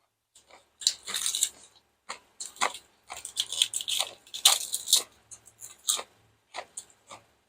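A person chewing crunchy food close to the microphone: uneven runs of loud crunches with short pauses between them.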